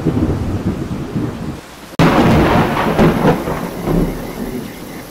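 Thunderstorm: thunder rumbling over rain, dying down, then a new loud peal of thunder bursts in suddenly about two seconds in and rolls away slowly.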